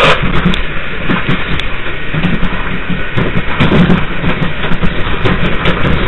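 New York City Subway 5 train running on the track, heard from the front cab: a steady, loud rumble of wheels on rail with frequent short clicks and clatters.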